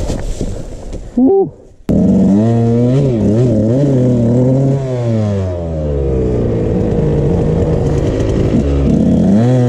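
Dirt bike engine catching suddenly about two seconds in, after some clattering handling noise, then revved in a few quick blips. It drops back to a steady idle and is revved up again near the end.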